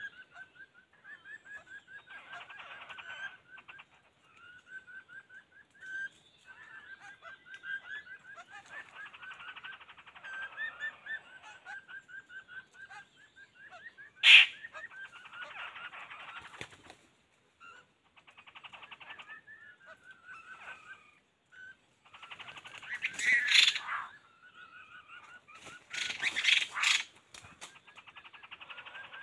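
Birds calling in fast runs of short, repeated notes, broken by louder harsh, rasping bursts late on and one sharp snap about halfway through.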